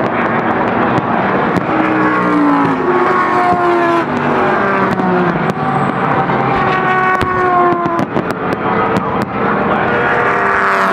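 Endurance race cars running at speed around the track, several engine notes overlapping and sliding in pitch as the cars pass one after another. Sharp firework bangs crack over them now and then.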